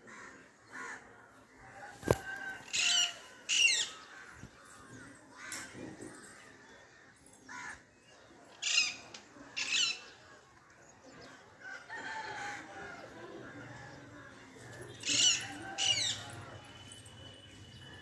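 Parrot giving short, shrill screeching calls in pairs: three pairs, several seconds apart. A sharp click comes about two seconds in.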